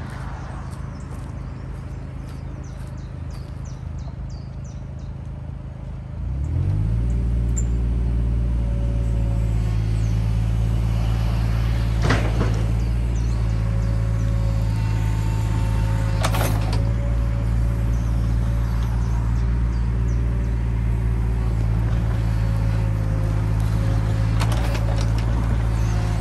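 Mini excavator's diesel engine idling, then revving up about six seconds in and running steadily at working speed as the hydraulics move the arm and bucket to lift a log. A few sharp knocks from the bucket and log stand out.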